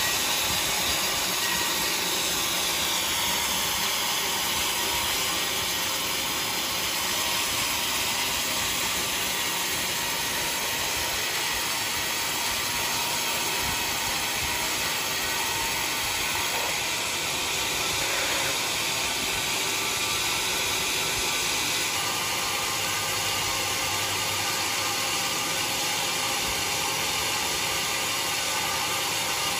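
Sawmill saw running steadily, a continuous mechanical noise that holds an even level throughout.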